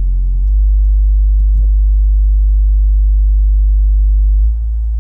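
Subwoofer playing a loud, steady low-bass sine test tone. The tone steps up about half a second in and drops back in level near the end.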